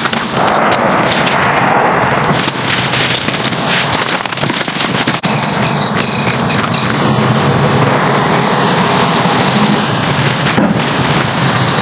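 Heavy rain pattering hard, with many sharp cracks and pops throughout.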